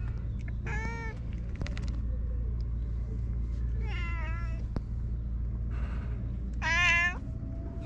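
Cat meowing three times: a short meow about a second in, a longer wavering one around four seconds, and the loudest near the end. A steady low rumble runs underneath.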